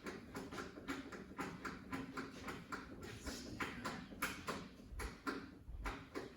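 A quick run of irregular clicks and light knocks, several a second, with no engine running.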